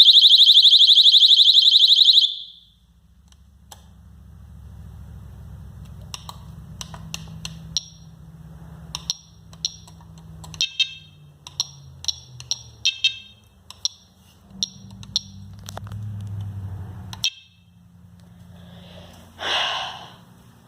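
A fire alarm sounder gives a shrill, steady electronic tone, then cuts off suddenly about two seconds in as the system is switched off at its keypad. After that there is a low steady hum with a run of short high beeps and clicks, and a brief louder burst near the end.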